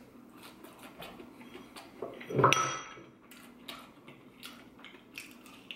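Tableware being handled: a small glass sauce bowl clicking and tapping, with one louder ringing clink about two and a half seconds in.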